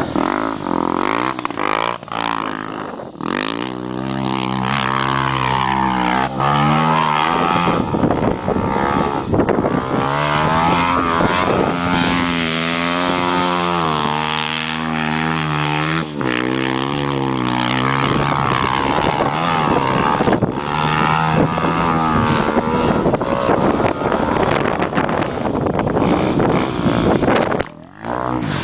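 Honda XR 250 Tornado single-cylinder four-stroke motorcycle engine running under load, its pitch repeatedly rising and falling as it revs up and eases off through the sand. It dips out briefly near the end.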